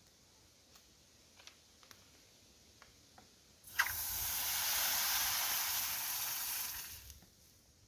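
Water poured from a plastic bottle into a hot pan of rice on a wood fire, hissing and sizzling for about three seconds with a sudden start partway through.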